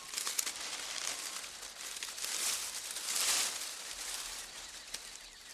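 Leafy tree branches rustling as a chimpanzee pulls and bends them into its night nest, with louder swells of rustling about two and a half and three and a half seconds in.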